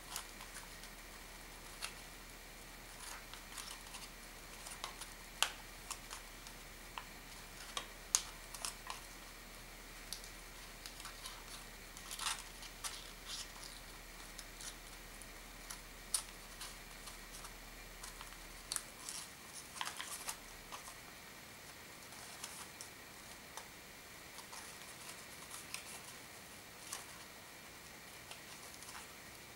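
Origami paper rustling and crinkling in the hands, with scattered small dry clicks and crackles as folded paper units of a modular kusudama are fitted together.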